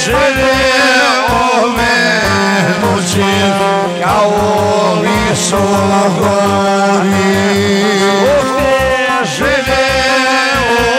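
Bosnian folk music played live: a long-necked lute and an arranger keyboard play an ornamented melody over a steady programmed bass beat.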